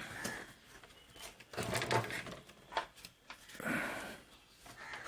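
Hands working an LVDS ribbon cable and its connector onto a TV circuit board: scattered rustling and a few small plastic clicks.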